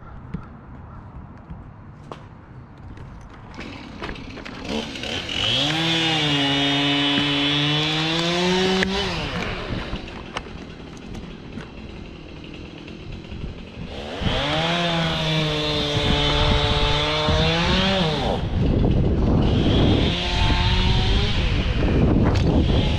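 Two-stroke chainsaw revved up and held at full throttle for a few seconds, dropping back to idle, then revved and held again. Near the end it runs again with a lower, rougher pitch.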